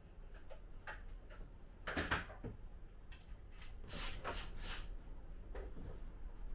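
Scattered knocks and scrapes of wooden display furniture being handled and shifted, with a louder knock about two seconds in and a run of brisk scraping strokes around four seconds in.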